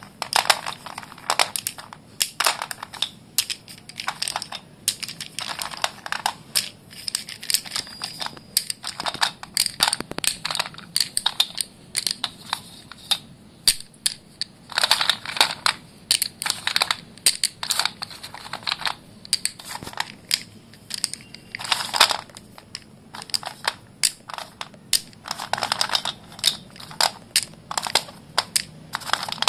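Sticks of white dustless school chalk being crushed and crumbled in the hand, making a continuous series of irregular dry crunches and crackles, with denser crushing spells every few seconds.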